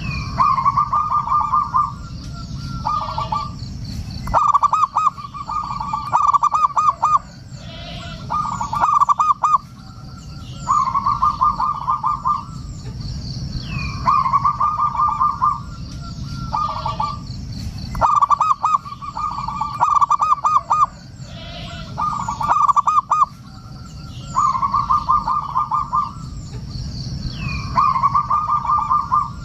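Zebra dove (perkutut) cooing: phrases of rapid, stuttering notes, each lasting a second or two, repeated with short pauses, as used for a lure call to draw other doves. Faint higher chirps from other small birds are also heard.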